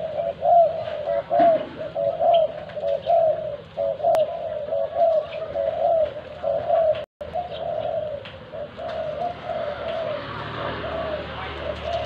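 Spotted dove cooing, a continuous run of repeated low coos, with the sound cutting out for a split second about seven seconds in.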